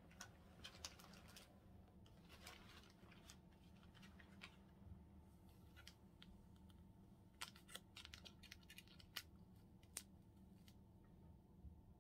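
Near silence over a faint low hum, broken by faint scattered clicks and rustles from handling a small plastic candy-kit tray and a paper powder packet, with a cluster of clicks past the middle.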